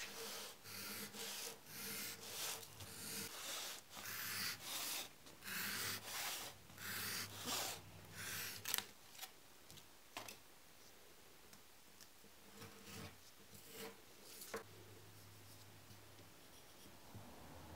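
Hobby knife blade drawn through foam core board: a run of scraping cutting strokes, about one a second, for the first nine seconds, then a few scattered, fainter scrapes.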